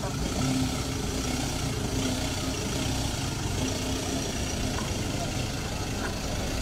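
Ford Ranger pickup's engine running at low revs as the truck pulls slowly out and drives past, a steady low rumble.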